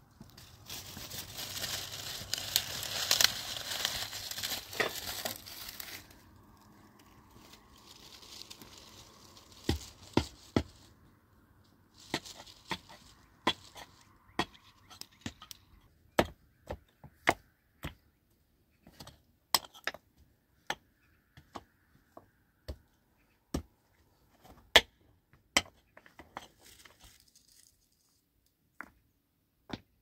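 Dense crackling and snapping of dry twigs being pulled and broken for several seconds. Then, from about ten seconds in, many sharp, irregular clacks of stones knocking together as they are set by hand on a dry-stone wall.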